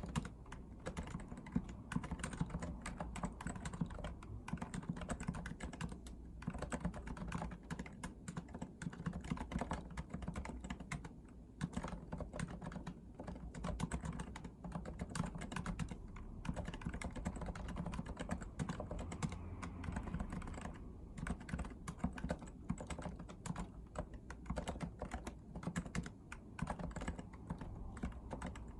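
Continuous fast typing on a REALFORCE R2 PFU Limited Edition keyboard with Topre electrostatic capacitive key switches. The keystrokes come in quick runs broken by a few short pauses.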